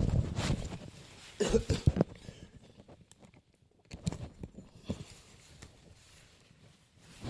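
Irregular knocks, clicks and rustling in a small room, with no music playing; the loudest cluster comes about one and a half to two seconds in.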